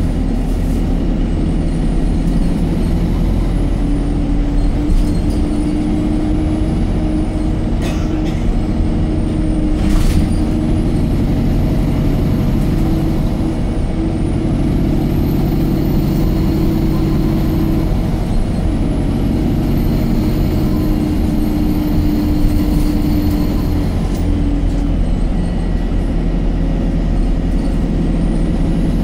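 Inside an Alexander Dennis Enviro 200 MMC single-deck bus under way: steady engine and road rumble with a humming tone that comes and goes and a faint high whine that rises and falls. There are two brief knocks about a third of the way in.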